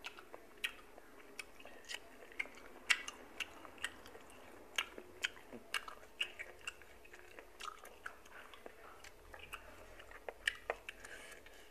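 Close-up chewing: irregular wet mouth clicks and smacks, two or three a second, as boiled golden apple snail meat is eaten.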